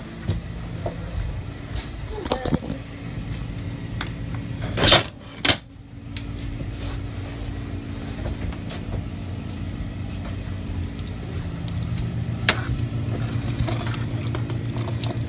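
Steady low hum of a vehicle engine running, with two loud metal clanks about five seconds in and scattered light clinks of halter hardware being handled.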